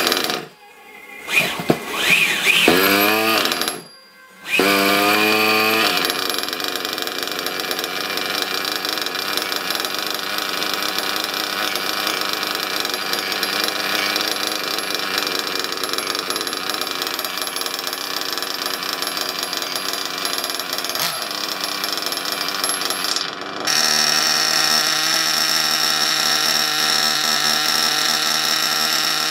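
Reds XR21 .21 nitro engine running on its first break-in tank with factory carburettor settings. For the first few seconds it runs in short spurts that rise in pitch, cutting out twice, then settles into a steady, fast-firing idle. Near the end there is a brief break, after which it idles on at a steadier pitch.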